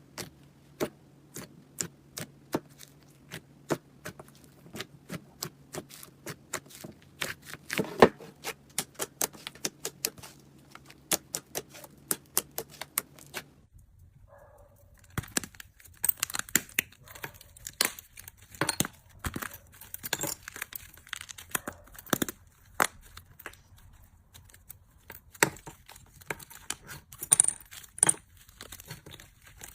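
Slime being pressed and squeezed by hand, making a long run of sharp little clicks and crackling pops. The crackling gets denser after a cut about halfway through.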